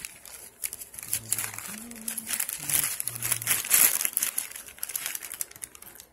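Plastic poly mailer bag crinkling and rustling as hands pull it open and rummage inside for the wrapped item, loudest about four seconds in.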